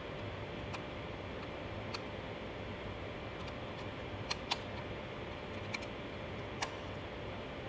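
About six light, sharp clicks of laser-cut wooden box parts knocking together as they are handled and fitted, two of them in quick succession a little past the middle, over a steady low hiss.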